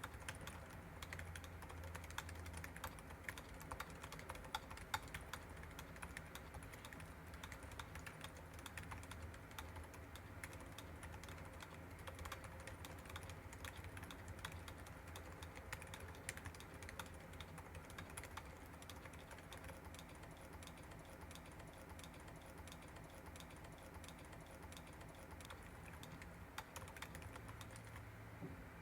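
Typing on a Wuque Studio Mammoth75 mechanical keyboard with stock Silent Alpaca silent linear switches, GMK Cafe keycaps and a full polycarbonate plate: a quiet, continuous run of muted keystrokes that thins out near the end.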